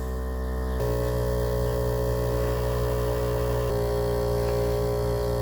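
Harbor Freight air compressor running steadily as it inflates a flat tire, a constant motor hum. Its tone shifts slightly about a second in and again past halfway.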